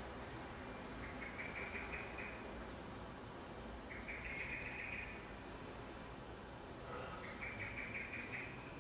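Outdoor ambience with insects chirping: a high, short chirp repeats about twice a second throughout, and three buzzy trills, each about a second long, come and go.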